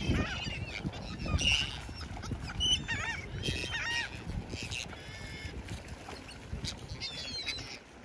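A flock of gulls calling, many short harsh arched cries overlapping, thinning out after about four seconds, over a steady low rumble.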